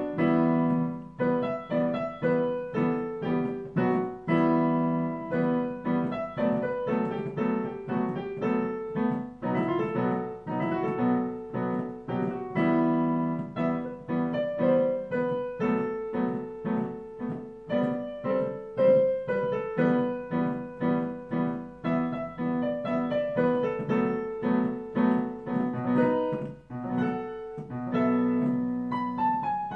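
Solo piano improvisation played with both hands: a melody of quickly struck notes over low chords that keep returning, a recurring theme that gives the piece a rondo-like form.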